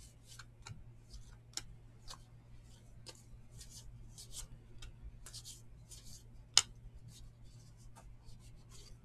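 Stack of baseball trading cards being flipped through by hand, each card slid off the front with a faint, crisp flick, one or two a second. One sharper card snap about six and a half seconds in.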